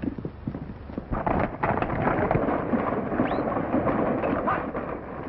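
A herd of horses running together: many hoofbeats merge into a dense, rumbling clatter that swells about a second in and keeps on steadily.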